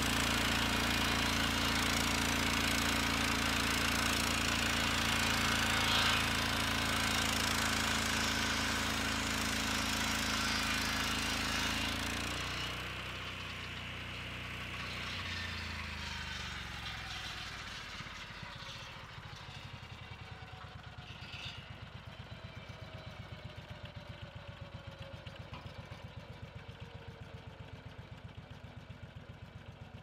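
Lucas Mill swing-blade circular sawmill running at full speed as the blade rips through a log. About twelve seconds in the cut ends and the engine is throttled back, its pitch falling over several seconds, then it settles into a steady idle.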